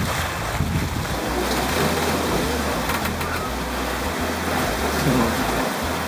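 Steady rushing hiss of water and wind around a sailing catamaran under way in a choppy sea, over a low steady hum.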